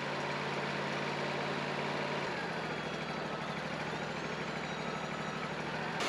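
Wood-Mizer LT40 portable sawmill's engine idling steadily, with no cut being made; its note shifts slightly a little past two seconds in.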